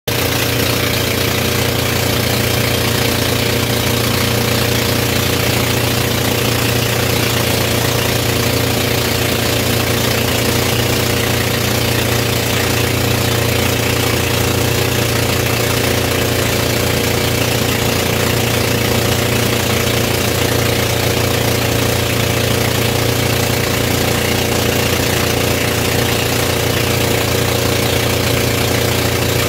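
Wooden motor boat's engine running steadily under way, with a constant rush of wind and water over it.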